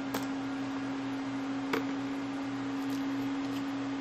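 Steady hum, a single unchanging tone over faint hiss, with two short clicks about a second and a half apart.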